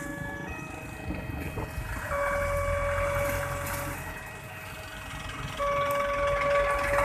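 Railway level-crossing warning siren sounding a slow two-tone alternation, a lower and a higher tone each held for about one and a half to two seconds, over the low running of motorcycles crossing the tracks.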